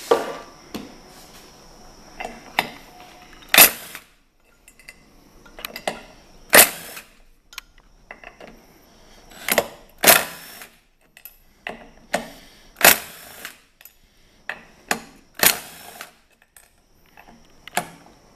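Cordless impact gun running in short bursts, about six of them a few seconds apart, as it loosens the bolts at the hub of a Packard torque converter's turbine. Light clicks of metal on metal come between the bursts.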